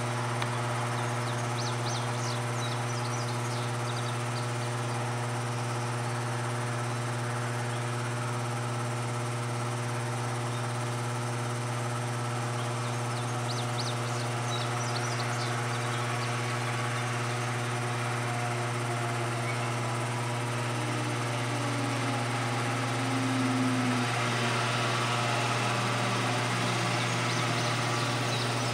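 Freight train cars rolling past on the rails: a steady low rumbling hum, with brief clusters of faint high clicking about 2 seconds in and again about 14 seconds in, growing a little louder near the end.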